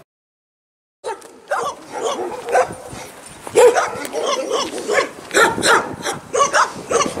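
Dogs in outdoor kennel runs barking, many short overlapping barks in quick succession. The barking cuts in about a second in, after a moment of dead silence.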